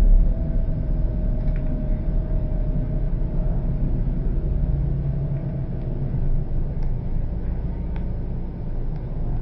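Steady low rumble of background noise, with a faint held tone fading out in the first few seconds and a few faint clicks.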